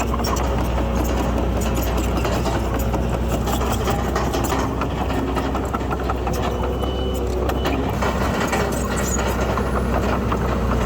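Heavy diesel earthmoving machinery running steadily with a low, even engine drone and scattered small clicks and rattles.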